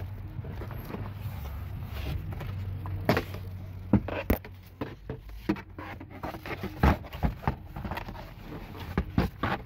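Scattered clicks and knocks of plastic car interior trim being handled and slid free, over a low steady hum.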